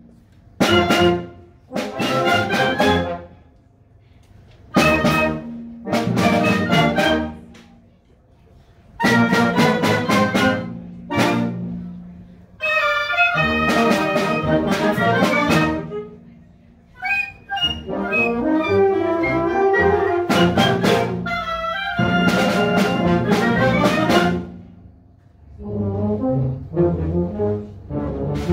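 Concert wind band playing a brass-heavy march: loud full-band chords in short phrases, broken several times by brief pauses where the sound dies away.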